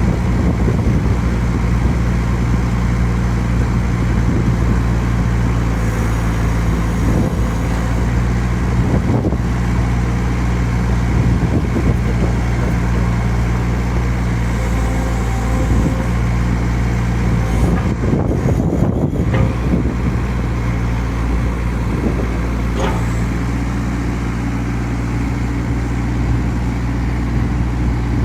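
Diesel engine of a 3.5-ton mini excavator running steadily, with a few brief knocks.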